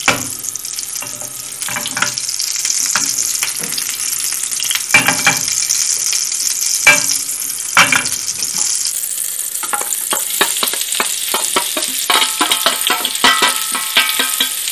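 Butter and vegetable oil sizzling in a hot frying pan, with a few sharp clicks. About ten seconds in, sliced onions go into the hot fat and crackle densely as they are stirred with a wooden spoon.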